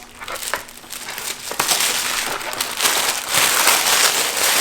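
Gift wrapping being ripped and crumpled by hand: a few sharp crackles, then from about a second and a half in a dense, continuous crinkling and tearing.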